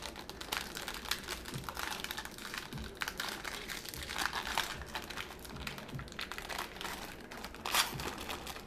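Plastic wrapping crinkling and crackling as a trading card box and pack are torn open and handled, with a run of small clicks and a few louder rustles.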